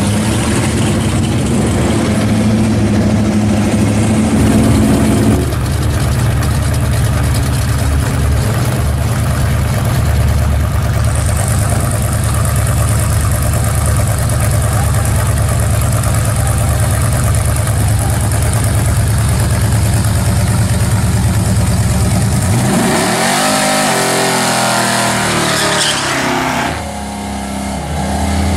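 Hot-rod car engines at a drag strip: a long stretch of loud, steady engine running, then an engine revving up in a rising run about 23 seconds in, with a different engine taking over near the end.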